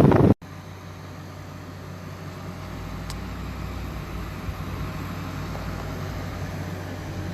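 Hisense portable air conditioner running: a steady low hum from the compressor with even fan noise, after a brief loud burst at the very start that cuts off abruptly.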